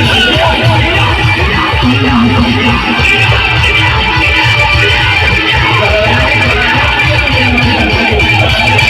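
Loud band music: a guitar lead over a heavy, steady bass beat.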